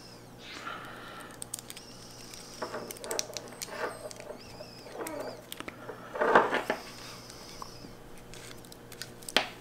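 Small clicks and scraping of plastic and metal as a 12-volt cigarette-lighter plug is screwed back together by hand. A louder rustling burst comes about six seconds in, and faint high-pitched tones come and go throughout.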